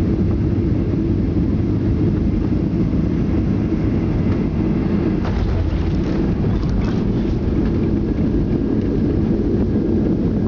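Cabin noise of a Ryanair Boeing 737-800 on landing: the deep, steady rush of the jet engines and airflow. About five to seven seconds in comes a short cluster of knocks and rattles as the main wheels touch down and the ground spoilers deploy.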